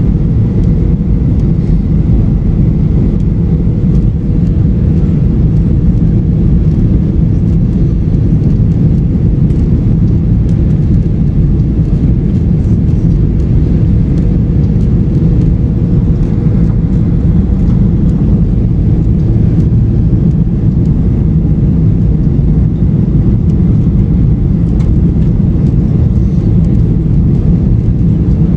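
Steady low drone of a Ryanair Boeing 737-800's engines and rushing airflow, heard inside the cabin during the approach to land, with a faint steady hum in the first half.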